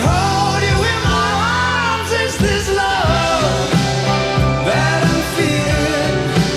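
Pop-rock song with a lead vocal over sustained bass, played from a vinyl record through hi-fi speakers and picked up by a nearby microphone.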